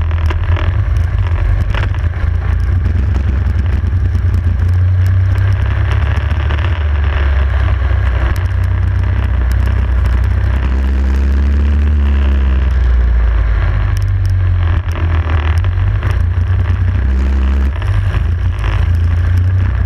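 Racing kart engine running flat out on track, recorded onboard, its note rising and falling a couple of times through the middle of the lap, under a heavy rumble of wind and road noise.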